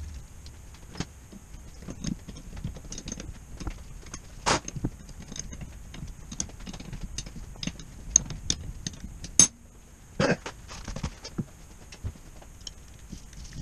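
Irregular clinks, taps and knocks of metal parts and hand tools handled on a Midland air compressor block held in a bench vise during reassembly, with a few sharper knocks standing out.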